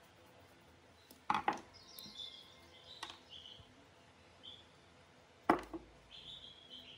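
Rusty metal parts of an old air pump knocking on a wooden workbench as it is taken apart: two sharp knocks, about a second in and again near the end, with a few lighter clicks between. Birds chirp faintly in the background.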